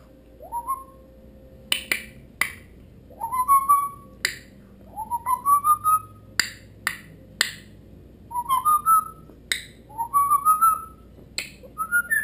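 Congo African grey parrot giving about six rising whistles, each sliding upward in small steps, with sharp clicks scattered between them.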